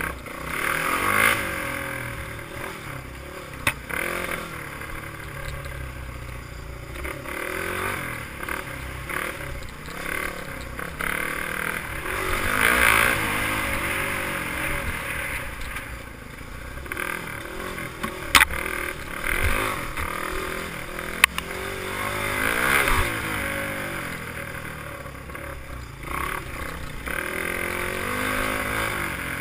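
Honda XR200 dirt bike's single-cylinder four-stroke engine ridden hard, revving up and falling back again and again through the gears. A few sharp knocks cut through the engine sound.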